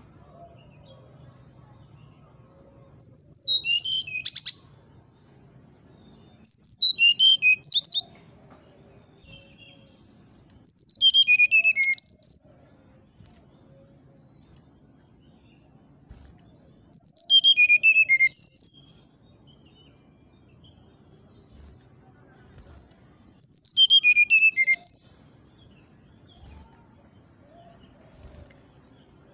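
Brown-chested jungle flycatcher (sikatan rimba dada coklat) singing in its cage: five short phrases, each a rapid run of high, clear notes falling in pitch, a few seconds apart.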